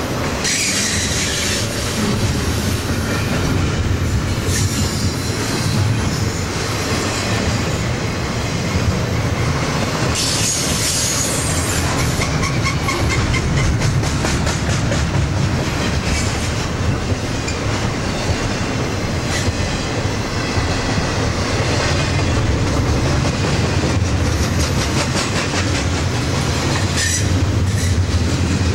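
A BNSF freight train's boxcars and double-stack container cars rolling past close by, a steady heavy rumble with the repeated clacking of steel wheels on the rails. Brief high-pitched bursts come about a second in and again about ten seconds in.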